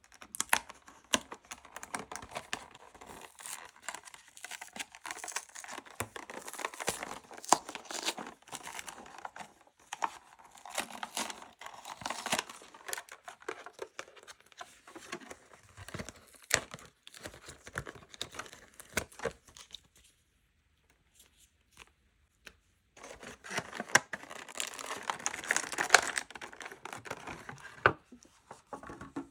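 Plastic sweet and toy packaging crinkling and being torn open by hand, with many small sharp clicks and taps. The sound stops entirely for about three seconds past the middle, then the crinkling starts again.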